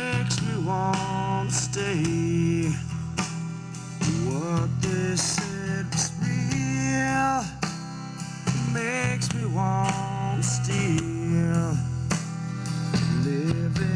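A recorded blues-rock song played back through a Heathkit W5M tube amplifier: guitar lines that bend up and down in pitch over a steady bass.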